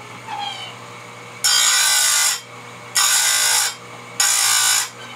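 Electric chain grinder's spinning wheel grinding a saw-chain cutter tooth in three short, loud dips, each under a second and about a second and a half apart. The motor hums faintly in between. The light dips are taken rather than jamming the wheel down, to keep heat off the tooth.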